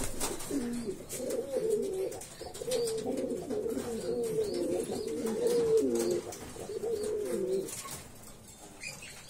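Domestic pigeon cooing in a run of low, warbling phrases that stops near the end, with a few faint clicks.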